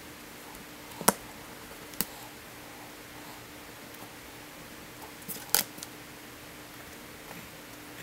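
Sharp taps and clicks from a wooden ruler and pencil being handled on a paper-covered desk: a single tap about a second in, another a second later, and a quick cluster past the middle, over a faint steady hum.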